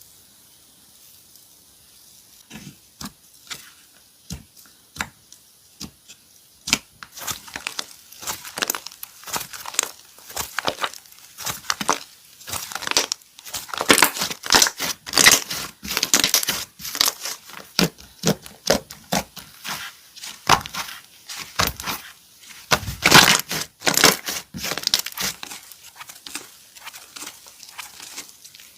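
Slime being worked by hand, giving quick crackling pops: a few scattered pops at first, then dense crackling from about seven seconds in, loudest a little before the end.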